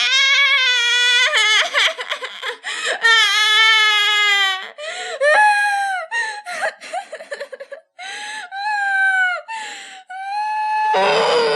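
Infant crying: two long, high wailing cries with a wavering pitch, then shorter, broken cries and sobs with brief pauses between them.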